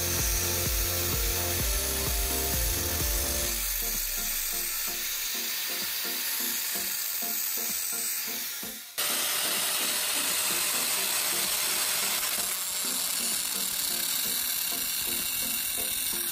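Angle grinder with an abrasive disc grinding rust off an iron gearbox housing, a steady hissing grind, over background music with a steady beat. The sound dips and comes straight back about nine seconds in.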